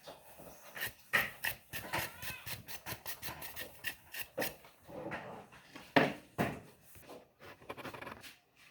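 Irregular clicks, taps and rustling from handling a microwave's control board and small tools on a workbench.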